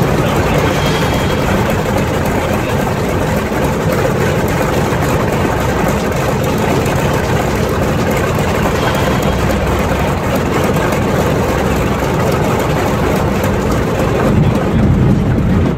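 Douglas A-1 Skyraider's Wright R-3350 radial engine and propeller running on the ground, heard from the cockpit as a loud, steady drone that grows a little louder near the end.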